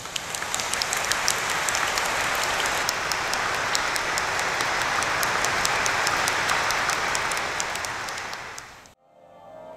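A congregation applauding: dense, steady clapping that fades near the end and cuts off suddenly, followed by soft music.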